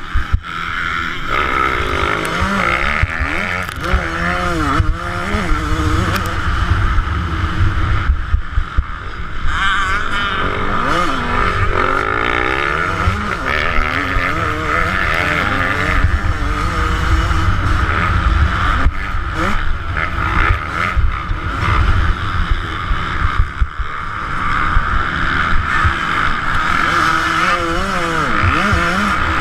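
2009 Yamaha YZ125's two-stroke single-cylinder engine revving up and falling back again and again as it is ridden hard around a motocross track, heard from a camera on the bike or rider.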